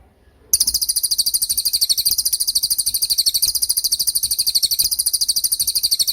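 A cililin songbird's 'tembakan' song: a loud, very fast, high-pitched trill of evenly repeated notes, about fourteen a second, starting half a second in and held without a break.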